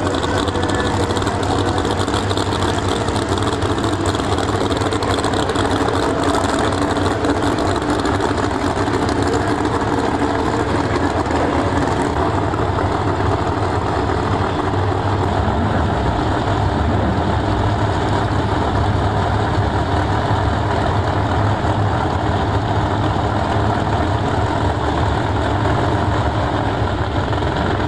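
Two no-prep drag race cars' engines idling at the starting line while staging, loud and steady.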